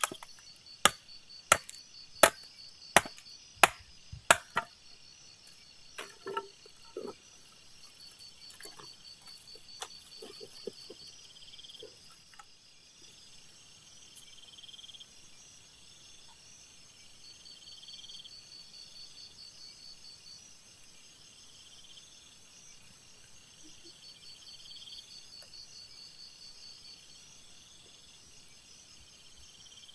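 Wood being chopped with a blade to split kindling: about seven sharp strikes, roughly one every two-thirds of a second, stopping about four seconds in. A few softer knocks and handling sounds follow, while insects chirp in steady pulses throughout.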